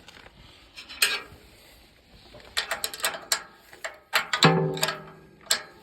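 Metal hand tools clinking and clanking as they are handled and set down, a scattered series of sharp knocks with one louder clank about four seconds in that rings briefly.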